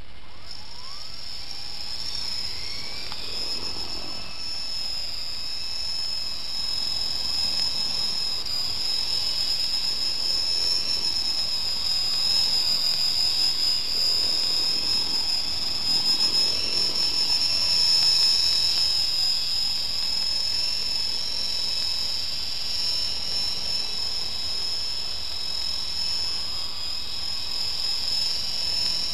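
Micro electric RC helicopter's motor and rotors running with a high whine. It starts suddenly, rises in pitch over the first few seconds, then wavers up and down as the throttle changes, growing louder toward the middle.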